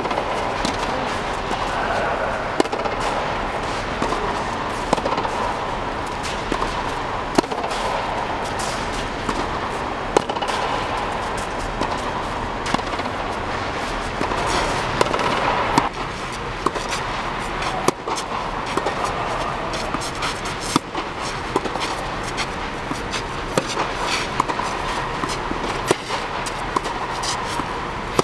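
Tennis balls struck by rackets in rallies, a sharp pop every second or two, over a steady background noise.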